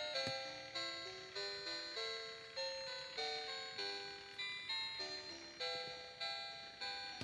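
Animated dancing Santa toy playing its tinny electronic melody, a steady run of short notes about two a second, each starting sharply and fading quickly.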